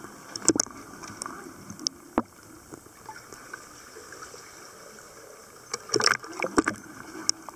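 Water splashing and sloshing as a freediver moves at the surface of a cave air pocket, picked up by a camera at the waterline. There are a few sharp splashes about half a second in and another cluster about six seconds in.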